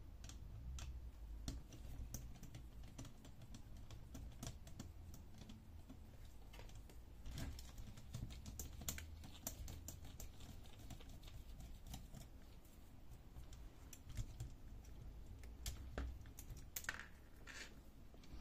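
Screwdriver backing out small screws from a laser printer fuser's metal cover: light, irregular clicks and taps of the bit, screws and plastic-and-metal parts being handled, a few sharper clicks near the end, over a faint low hum.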